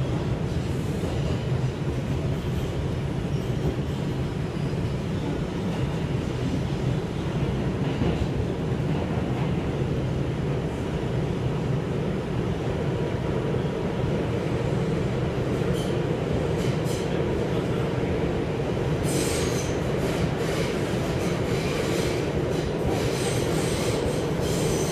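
Interior of an R142 subway car running at speed through the tunnel: a steady rumble of wheels on rail and running gear. High wheel squealing comes and goes in the last few seconds.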